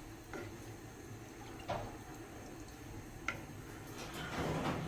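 A spoon stirring chicken pieces in water in a cooking pot: soft swishing of liquid with a few light clinks, and a louder swirl near the end.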